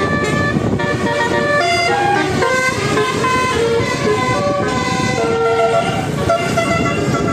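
Bus telolet horn, a multi-tone musical air horn, playing a quick melody of held notes that step from pitch to pitch, over a low rumble.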